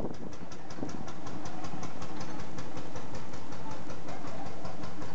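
Vintage tractor engine running with an even pulsing beat, about four pulses a second, growing louder about a second and a half in.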